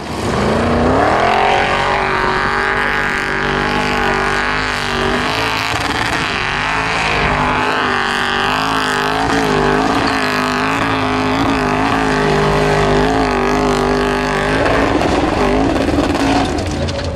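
Formula Offroad buggy's race engine revving up hard within the first second and held at high, slightly wavering revs under full load as it climbs a steep sand-and-gravel slope, then dropping off about 15 seconds in as the buggy reaches the crest.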